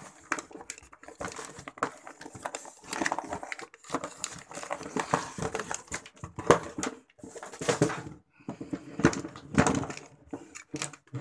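Handling noise: cardboard box rustling and scraping, with irregular plastic knocks and clunks as a cordless drill and a battery charger are lifted out and set down on a wooden bench.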